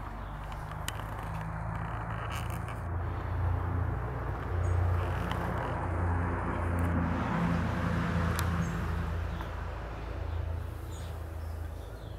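Low hum of a distant engine that swells and fades through the middle, over a steady outdoor hiss, with a few faint high ticks.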